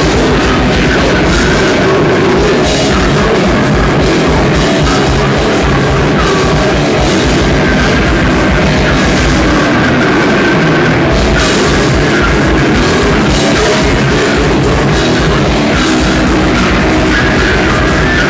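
Metal band playing live and loud: distorted electric guitars over a drum kit with a rapid, steady kick-drum beat.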